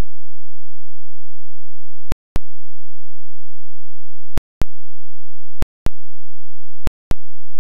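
Audio-less home-movie transfer: near silence with a very faint hum, broken by four pairs of sharp clicks, the two in each pair about a quarter of a second apart.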